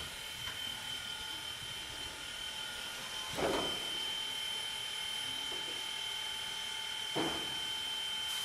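1906 Norfolk & Western 4-8-0 steam locomotive No. 475 easing into its engine house: a steady high whine over a soft hiss, with two short bursts of steam about four seconds apart.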